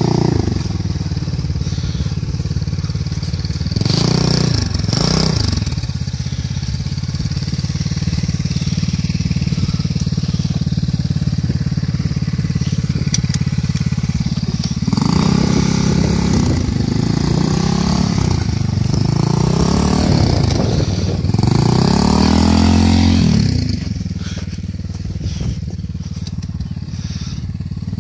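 Engine of a homemade two-wheel-drive motorcycle running under load as it pushes through soft sand. It revs up briefly a few seconds in, then revs up and down repeatedly through the middle stretch, and settles lower near the end.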